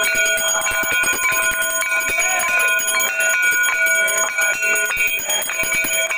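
Brass hand bells rung rapidly and without pause for a Hindu aarti. Many overlapping ringing tones mix with a quick run of metal strikes.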